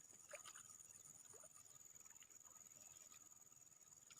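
Near silence: faint outdoor ambience with a steady high insect whine and a few faint short chirps.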